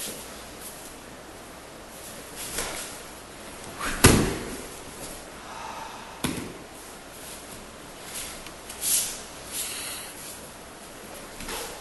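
A body slamming down onto a padded training mat in a breakfall about four seconds in, the loudest sound, with a smaller thump about two seconds later. Short rustling swishes come before it and again near the end.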